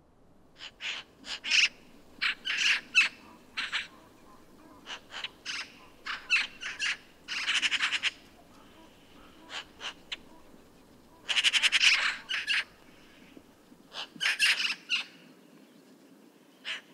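Eurasian magpies chattering: harsh rattling calls in repeated bouts, from short clusters to two longer rattles of about a second each.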